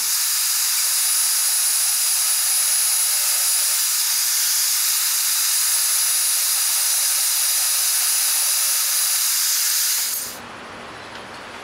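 Milwaukee portable band saw (Portaband) cutting aluminum, the blade running steadily through the metal with a loud high-pitched hiss and a thin whistling tone. The cut ends and the sound stops suddenly about ten seconds in.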